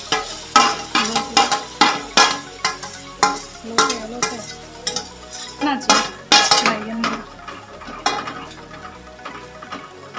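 Ground almond paste being scraped with a steel spoon off a steel plate into hot ghee in a kadhai: a run of irregular clinks and scrapes of spoon on plate and pan over the sizzle of the paste frying, the clatter thinning out over the last few seconds.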